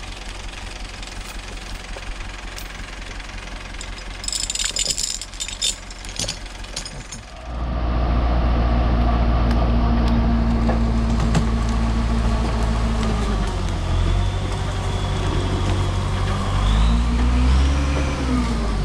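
LKT 81 Turbo skidder's diesel engine running, at first quiet in the background with some sharp metallic clinks and rattles of chain handling. About seven and a half seconds in it becomes much louder, running steadily under load as the skidder winches a large fir log, with its pitch shifting and rising near the end.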